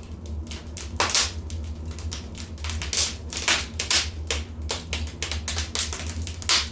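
Wood fire in a fireplace crackling: a rapid, irregular stream of sharp pops and snaps, with a few louder ones, over a steady low rumble.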